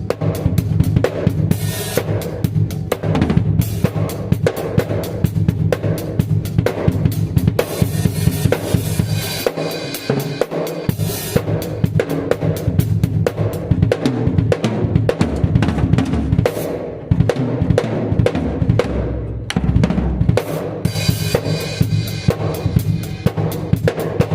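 Drum kit played at a sound check: bass drum and snare in a steady, busy run of hits with no break.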